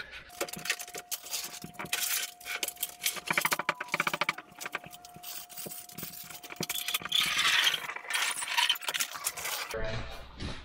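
Jet ski on a wheeled dolly being rolled across a concrete garage floor, its casters rattling and clicking irregularly. A thin steady whine runs alongside and stops shortly before the end.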